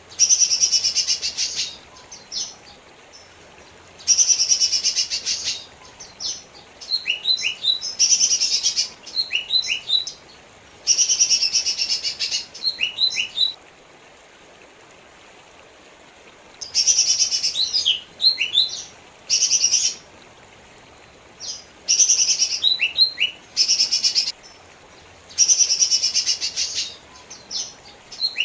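Male lesser green leafbird (cucak ijo mini) singing. Its song comes in repeated phrases of fast, dense trills mixed with quick downward-sliding whistles, each phrase a second or so long, with short pauses between and one longer pause near the middle.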